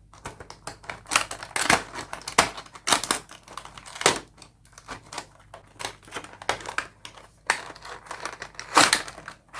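A small cardboard toy box with a plastic window being opened by hand: irregular clicks, scrapes and crinkles as the card flaps and the plastic insert are pulled and handled.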